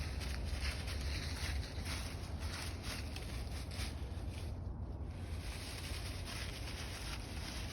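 Wind rumbling on the microphone outdoors, with irregular light rustles and crunches throughout.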